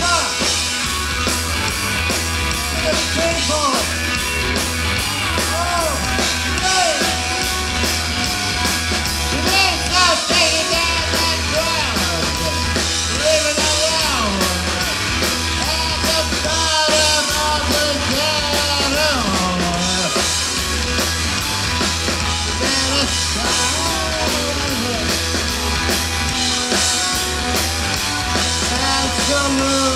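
Live post-punk band playing: electric guitar, bass guitar and drum kit, with a male singer singing into a microphone over them.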